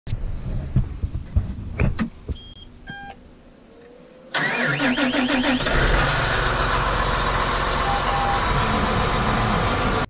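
A few clicks and knocks, then several short electronic beeps, then an engine cranks and starts about four seconds in and keeps running steadily and loudly.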